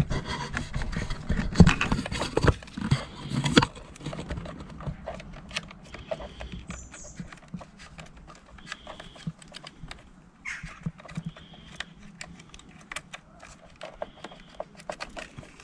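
Clicks and knocks of a plastic computer connector being unplugged and handled: a busy clatter over the first four seconds, then sparse light clicks.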